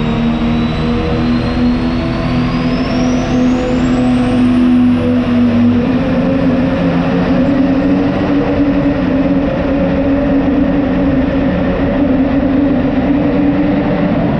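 Competition pulling tractor engine running hard at full power during a tractor pull run, with a high whistle that rises steadily in pitch over the first few seconds.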